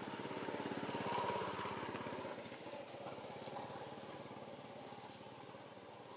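A small engine running at low speed with an even, fast pulsing beat. It is loudest about a second in, then slowly fades away.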